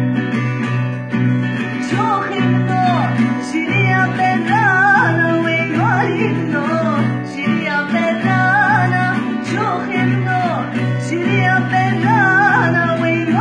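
Music: a voice singing a wavering, ornamented melody over plucked-string accompaniment and a steady low bass line.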